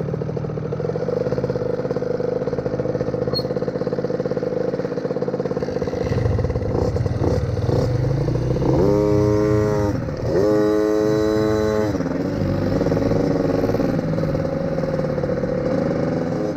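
Small dirt-bike engines: the KTM 50 Jr two-stroke, closest to the microphone, with a Honda XR100 four-stroke beside it. They idle steadily, then rev up twice as the bikes pull away, with a brief drop in revs between the two runs, and settle into steady running.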